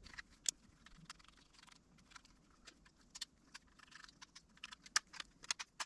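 Faint, irregular clicks and ticks of a small screwdriver working tiny screws out of the plastic back plate of a radio's detachable control head.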